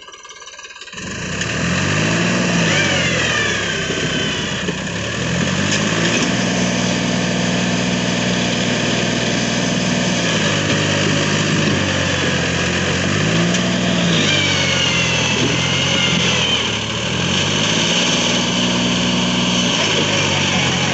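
Massey Ferguson 241 DI tractor's three-cylinder diesel engine labouring under load as it pulls a soil-laden trailer through soft, rutted ground. It comes in about a second in, and its revs rise and fall several times as it is pushed and eased off.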